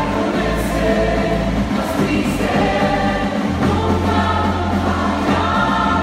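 Live Mexican-style band music: a tuba playing sustained bass notes under accordion and small guitar, with several voices singing together.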